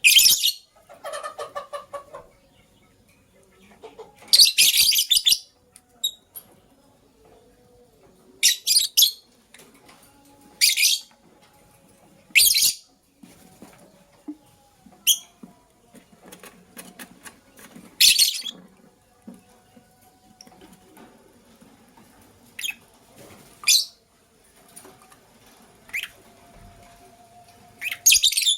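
Lovebirds giving short, shrill chirps, about ten separate bursts a few seconds apart, with a quick run of lower chattering calls about a second in.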